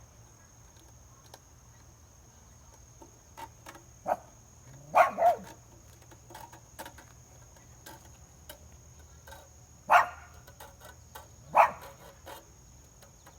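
A dog barks four times: a quick pair about five seconds in, then single barks at about ten and eleven and a half seconds. Faint clicks and scrapes from a hand file working between the saw's teeth sound in between.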